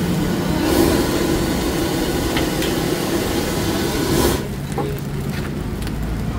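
High-pressure gas wok burner running at full flame under a wok of stir-fried noodles, with a few scrapes of a metal spatula on the wok. A little over four seconds in, the burner's rush stops abruptly, leaving a quieter low hum.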